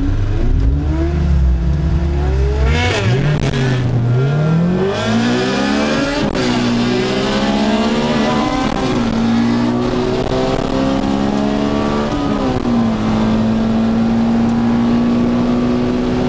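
Honda CRX's Type R engine accelerating hard down a drag strip, heard from inside the cabin: the pitch climbs through each gear and falls at every upshift, several times, then holds steady near the end of the run.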